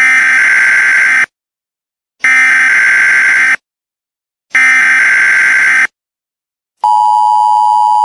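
Emergency Alert System SAME digital data bursts: three identical buzzy warbling bursts, each about a second and a quarter long with a second's gap between them, which close the alert as its end-of-message code. About seven seconds in, a steady two-tone EAS attention signal starts.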